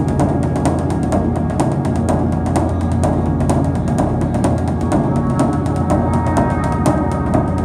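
Background music with low drums and a steady pulse of quick percussive strikes over sustained tones.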